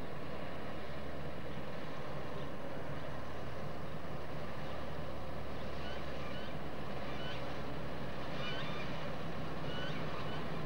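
Diesel shunting locomotive's engine running as it hauls coaches slowly in, a steady low drone that grows a little stronger as it approaches. A few short high chirps sound over it in the second half.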